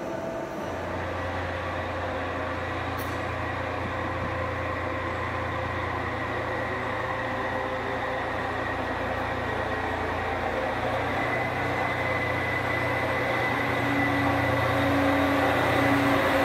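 Diesel shunting locomotive running as it approaches hauling passenger coaches, its engine a steady low drone that grows louder as it nears. A thin high squeal joins in the second half.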